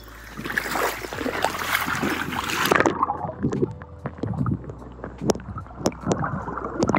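Water splashing and sloshing as a phone is dipped into the lake. About three seconds in the sound suddenly goes muffled as the microphone goes underwater, leaving scattered sharp knocks and clicks.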